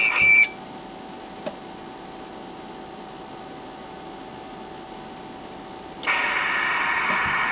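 Icom IC-718 HF transceiver audio on RTTY: a steady tone cuts off about half a second in and the sound drops to a low background. About six seconds in, band hiss with faint tones comes up from the radio's speaker and holds.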